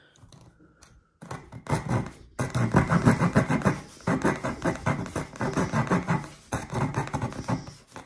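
Leatherman Surge multitool's saw blade cutting through a thin strip of wood in quick back-and-forth rasping strokes, about five a second; it cuts easily. The sawing starts about a second in and stops near the end.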